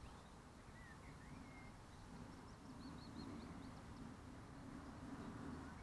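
Faint birdsong: a few short, thin chirps and whistles over a quiet, low background.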